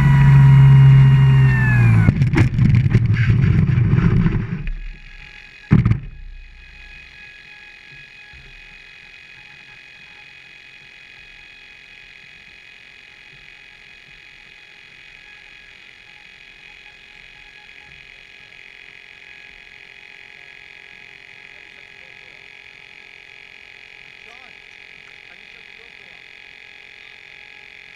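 An engine running at a steady pitch that winds down about two seconds in, rough rumbling until about five seconds, and a single knock near six seconds. After that only a faint steady electrical hum remains.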